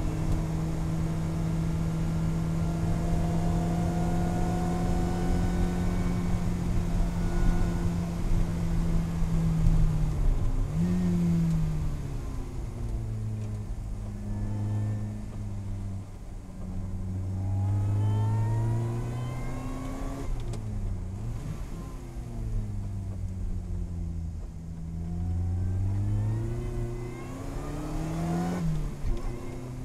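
In-cabin sound of a Lotus Elise Cup 250's supercharged 1.8-litre four-cylinder engine under way on track. It holds steady high revs for about ten seconds, then drops and climbs in pitch several times as the car brakes, downshifts and accelerates through a series of corners, over a steady hiss of tyre and road noise.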